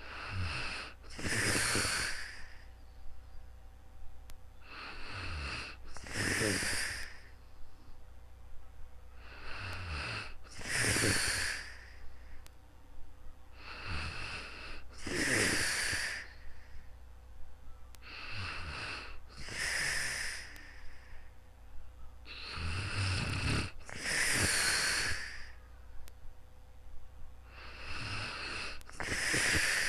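A sleeping person snoring in a slow, even rhythm, about one breath every four and a half seconds. Each breath is a short sound followed by a longer, louder one.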